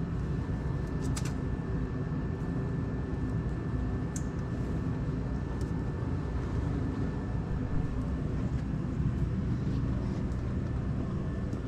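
A steady low mechanical rumble with a faint steady high tone, and a few light clicks of hands handling parts and wiring, about a second in and again in the middle.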